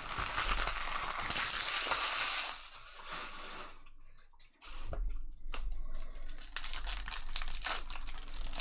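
Trading-card pack wrappers crinkling and tearing as packs are ripped open and handled, with a short lull about four seconds in.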